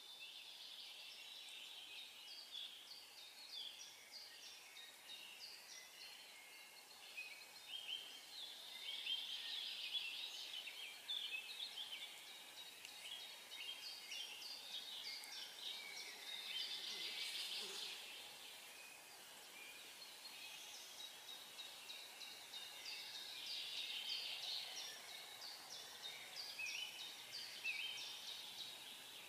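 Songbirds singing and calling together, a dense chorus of many short, overlapping high notes that is faint and continuous, swelling a little in the middle and again near the end.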